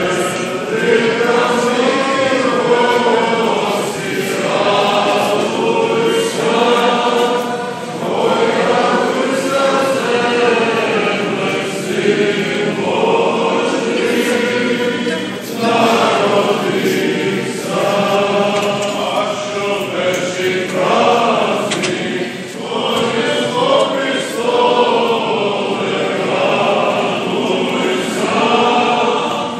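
Orthodox church choir singing liturgical chant, the voices held and moving together without a break, heard inside a large church.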